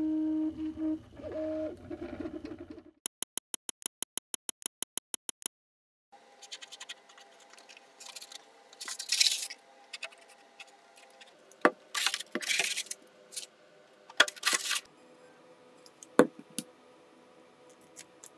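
A Prusa i3 MK3 3D printer's stepper motors whine in a few steady pitches that briefly slide, then a rapid, even run of clicks, about six a second, lasts for two seconds. After a short silence, light 3D-printed plastic parts are handled and glued: scattered scrapes, rustles and sharp plastic clicks.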